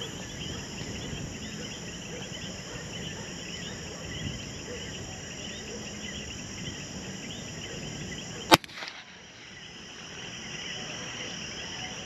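A single sharp shot from a Hatsan Jet II .25 airgun about eight and a half seconds in, over a steady chorus of chirping night insects.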